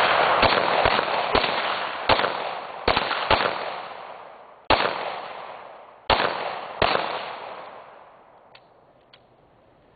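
Pistol firing about nine shots at an uneven pace, each shot a sharp bang followed by a long echo that dies away. The shooting stops about seven seconds in, leaving only a couple of faint ticks.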